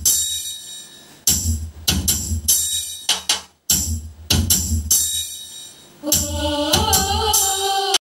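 A song played through an STK4141-based stereo amplifier and a 10-inch woofer speaker: heavy bass beats and percussion, with a singing voice coming in about six seconds in. The music cuts off abruptly just before the end.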